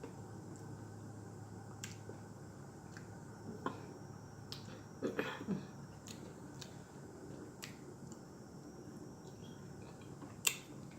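Someone eating: scattered sharp clicks and smacks of mouth and utensil, with a couple of soft mouth sounds about halfway through, over a steady low hum.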